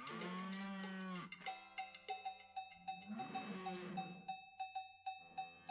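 Cow mooing twice, one long moo at the start and another about three seconds in, over a cowbell struck in a steady rhythm as part of a music track.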